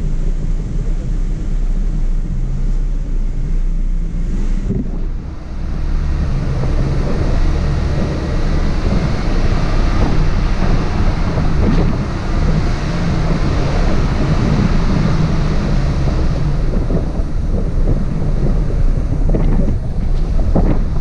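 Hummer H2 driving a bumpy dirt trail, heard from a camera mounted outside on the body: a loud, steady low rumble of wind buffeting the microphone over the engine's drone, with a few knocks near the end as the truck jolts over the ground.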